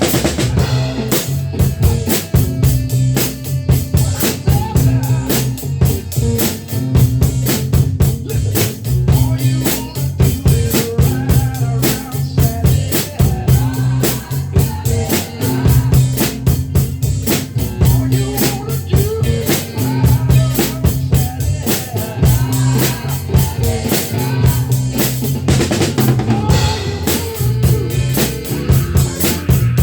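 Drum kit played in a steady groove with bass drum, snare and rimshots, over recorded music with a bass line.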